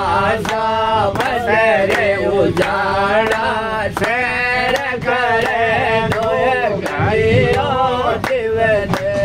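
A man singing a sakhi, a Rajasthani folk verse, unaccompanied, in long held notes that waver and bend, over the low rumble of a moving train.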